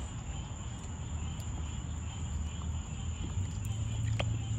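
Crickets trilling steadily at night over a low steady hum that grows louder about three and a half seconds in, with a few faint clicks and splashes from raccoons dabbling their paws in a plastic kiddie pool.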